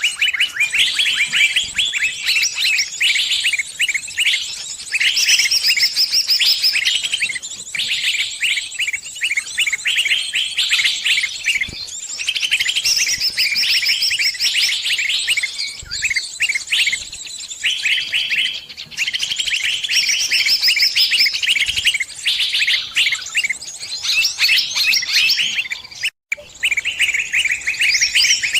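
Sunbirds chirping and twittering without pause, a dense run of rapid high notes. The sound cuts out completely for a moment near the end.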